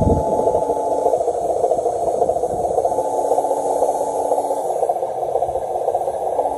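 A radio-controlled semi-truck driving over rough ground, with its drive running steadily and a faint whine that comes and goes. There is a short low rumble at the start.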